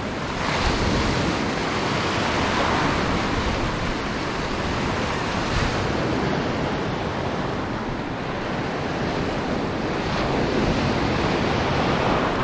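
Surf breaking and washing around the legs of someone wading, a steady rush that swells and eases with each wave, with wind buffeting the microphone.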